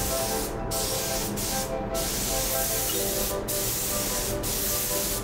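Hissing spray in long bursts with short breaks between them, over soft background music.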